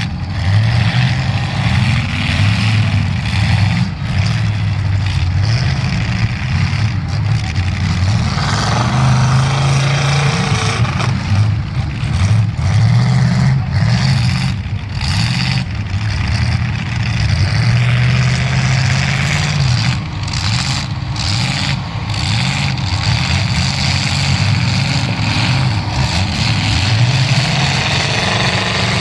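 Several demolition derby car engines running and revving hard, their pitch repeatedly rising and falling as they push against each other.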